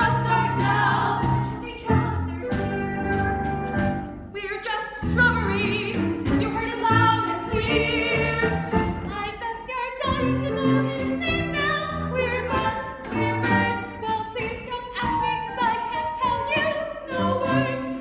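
Three women singing a musical-theatre song together, voices with vibrato, over instrumental accompaniment.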